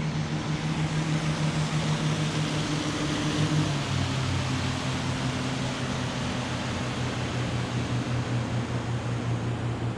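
Motorboat engine running close by: a steady drone over a loud broad hiss, its pitch dropping a little about four seconds in.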